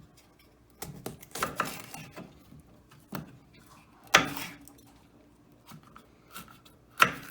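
Knife cutting green bell peppers on a cutting board: irregular cuts and knocks, louder strokes about four seconds in and near the end.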